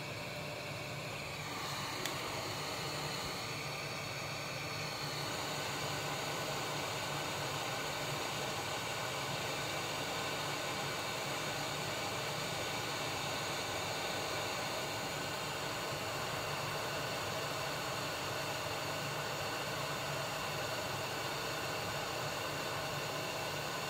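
Handheld hot air rework gun blowing, a steady hiss that grows a little louder about two seconds in and then holds even.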